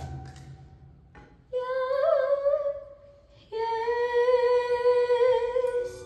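A single voice singing unaccompanied: two long held notes with vibrato, the first starting about a second and a half in, the second a little lower starting about three and a half seconds in.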